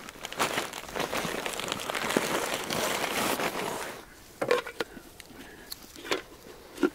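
Plastic bag crinkling and rustling as gear is handled and packed, stopping abruptly about four seconds in; after that only a few faint rustles and clicks.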